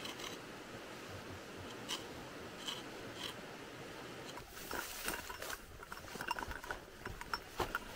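Ayahuasca vine being scraped and rubbed against a stone in shallow river water, faint scraping with scattered small clicks that come more often in the second half.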